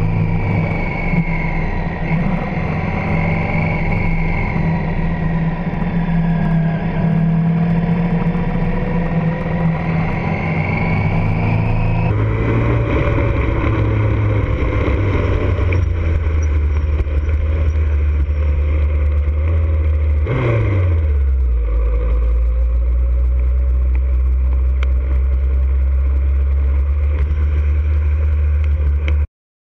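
Onboard sound of a Triumph Speed Triple's three-cylinder engine at track speed, its pitch rising and falling with the throttle over wind noise. After an abrupt cut, a second sportbike, likely the Yamaha R1 with its inline-four, rolls at low speed. About two-thirds through its revs drop sharply and settle into a low steady run, then the sound cuts off suddenly near the end.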